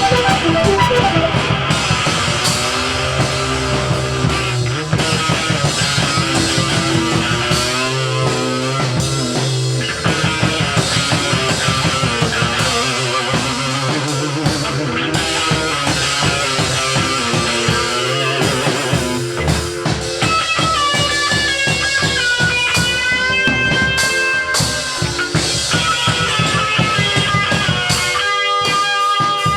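Rock music: a band with guitars, bass and a drum kit playing a steady beat. A higher melody line comes in about twenty seconds in.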